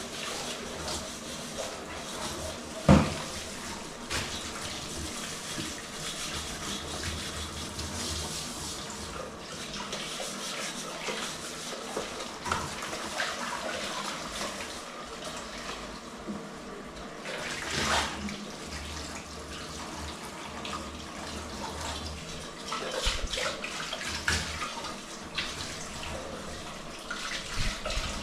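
Water running and splashing, as at a sink while things are washed. There is a sharp knock about three seconds in and another clatter about eighteen seconds in.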